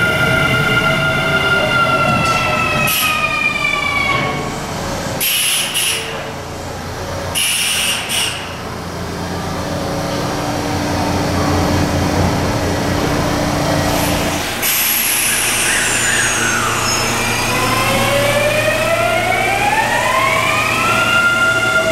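Kintetsu Series 21 electric train's Mitsubishi IGBT VVVF inverter: its whine of several tones falls in pitch as the train brakes, a few short hisses of air follow, and a steady hum holds for several seconds. From about two-thirds through, the inverter tones climb again as the train accelerates, then level off at a steady pitch near the end.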